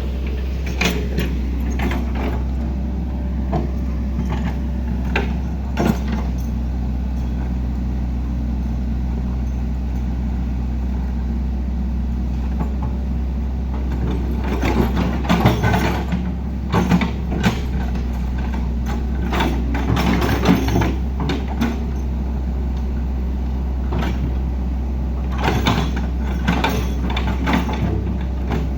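Heavy machinery engine running steadily at work, with clusters of sharp metallic clanks and knocks in the middle and near the end.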